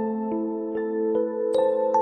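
Gentle instrumental intro music: a soft melody of separate notes, about two or three a second, each ringing on over the next.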